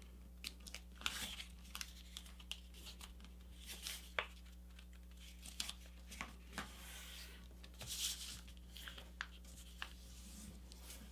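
Sheet of paper being folded and creased by hand into a paper airplane: faint, scattered crinkles and rustles with short sharp taps as fingers press the creases flat.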